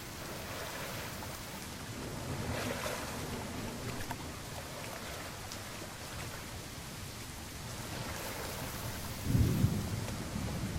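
Rain falling steadily, with a sudden low rumble of thunder about nine seconds in, the loudest moment.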